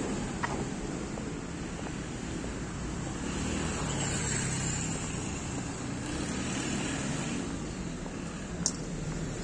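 Steady background noise of road traffic with a low rumble, broken by two brief clicks, one just after the start and one near the end.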